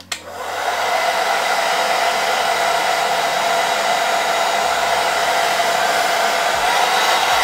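Handheld hair dryer switched on and coming up to speed within about a second, then running steadily: a loud rush of air with a steady whine in it. It is blowing dry the lace glue spray on a lace-front wig's edges.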